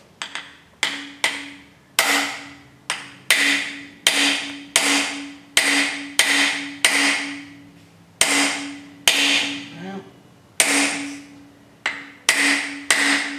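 Hammer blows on a socket held against a brass freeze plug, driving it into the cast-iron block of a Chrysler 440 V8. A steady series of sharp metallic strikes, about two a second, each with a short ring, with a brief pause about two-thirds of the way through.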